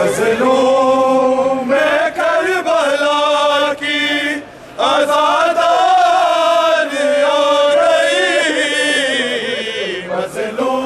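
Men's voices reciting a noha, a Shia lament chanted together in long, drawn-out sung lines, with a brief pause about four and a half seconds in.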